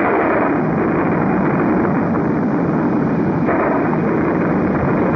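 Cartoon sound effect of an erupting volcano: a continuous loud rumble that swells just as it begins and again about three and a half seconds in.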